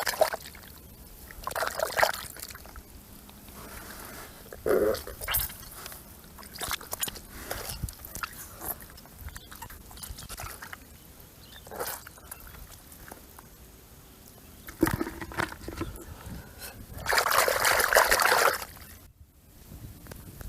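Water splashing and sloshing in irregular bursts at a muddy fish hole, with small wet clicks between; the longest and loudest splashing comes about seventeen seconds in and lasts nearly two seconds.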